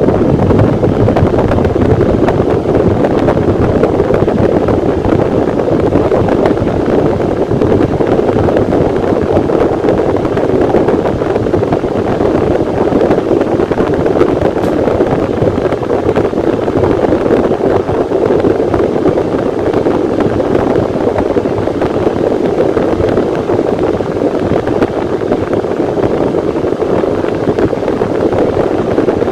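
Electric fan running steadily, a loud, even rush of air with no change in speed.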